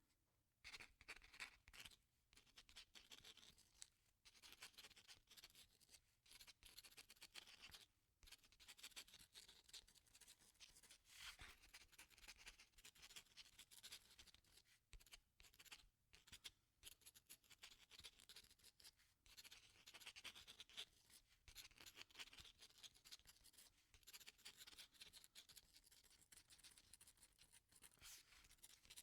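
Pen writing on paper: a continuous fine scratching of strokes, broken by short pauses every few seconds.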